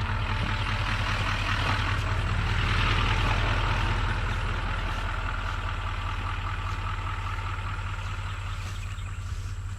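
A motor vehicle running with a steady low engine hum, heard from inside or beside it, with a rush of road and tyre noise that swells about three seconds in and slowly fades.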